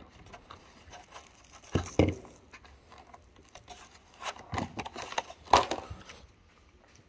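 Clear plastic clamshell blister packaging being handled, crinkling and clicking in a few short bursts.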